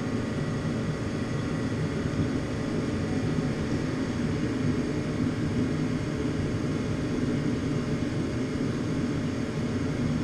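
Steady low droning noise, like a running fan or blower, with no distinct knocks or clanks.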